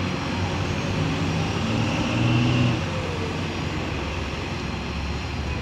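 Diesel engines of heavy machinery (mobile cranes and a tracked excavator) running steadily, with one engine rising in pitch and getting louder for about a second around two seconds in.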